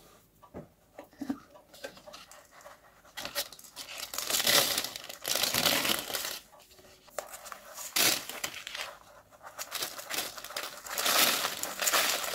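A pot of perlite being handled as a rubber-plant cutting is worked out of it: crinkling, rustling and scraping in irregular bursts, with a single sharp click about eight seconds in.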